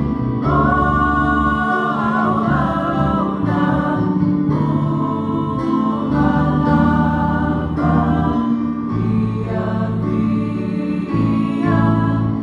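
Four women of a church praise team singing a gospel song together through microphones, accompanied by electric keyboard and guitar, with steady low notes beneath the voices.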